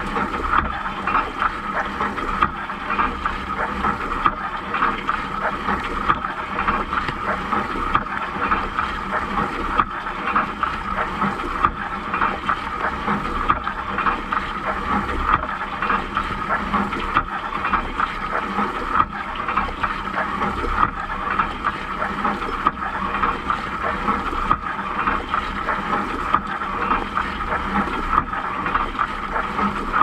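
Water jets from a Siemens dishwasher's spray arms spraying and splashing over the dishes and racks inside the tub during the wash cycle: a steady rush of water.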